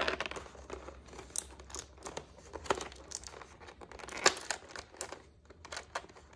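Clear plastic toy-packaging tray crinkling and crackling in irregular bursts as hands pull a small plastic doll's umbrella free of it, with a louder crackle a little past the middle.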